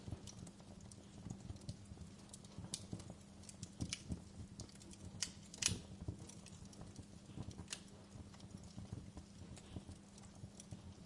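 Wood fire crackling, with irregular small pops and one sharper pop a little past halfway, over a faint low steady hum.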